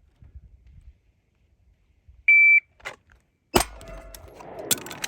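A shot timer beeps once, about two seconds in, to start a one-round, reload, one-round handgun drill from the holster. About a second and a quarter later the pistol fires once, and a metallic ringing lingers after the shot. Near the end comes a sharp, quieter clack, made during the reload.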